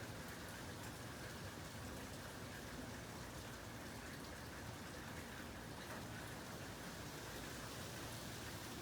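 Steady rain falling during a thunderstorm: an even hiss with scattered faint drop ticks and no thunder.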